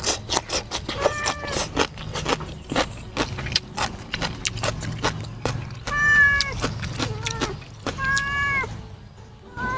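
A cat meows three times, each call about half a second long. Throughout, close wet chewing and lip-smacking clicks come from a man eating with his fingers.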